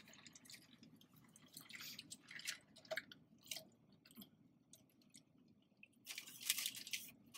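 Close-miked chewing of fast food: soft wet mouth smacks and small crunches coming in scattered bursts, with a louder noisy burst about six seconds in.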